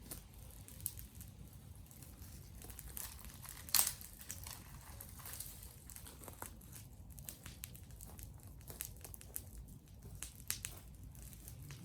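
Wood fire crackling: irregular sharp pops and ticks, with one louder snap about four seconds in.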